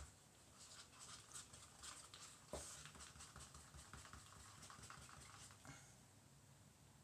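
Faint, irregular clicks and light taps of a stirrer against a plastic cup of cold-process soap batter, with one louder knock about two and a half seconds in. They stop about six seconds in.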